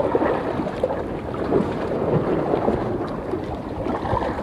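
Strong wind buffeting the microphone over the steady wash of choppy sea waves against the rocks.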